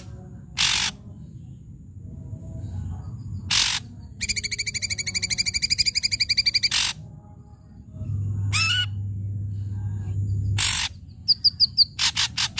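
Ashy drongo singing: short harsh calls, then a rapid buzzy rattle of about nine notes a second lasting nearly three seconds, a rising whistled note, and a quick run of short sharp notes near the end.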